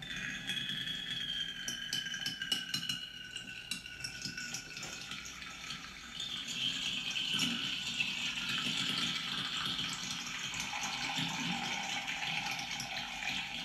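Urine streaming into glass specimen containers, with a ringing tone that slides slowly downward as the glasses fill. About six seconds in, a louder, noisier stream joins in.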